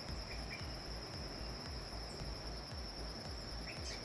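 Insects trilling steadily at a high pitch, with a few faint short chirps.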